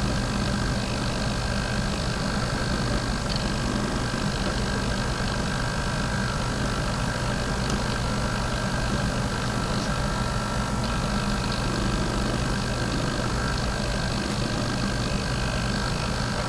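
Motors of a brush-stroke painting robot humming steadily as the brush carriage moves through its strokes.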